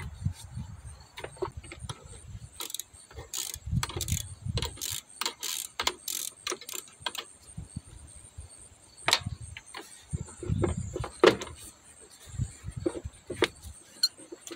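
Hand socket ratchet clicking in short runs on the fasteners of a car's plastic air filter housing, with scattered knocks from the plastic parts being handled.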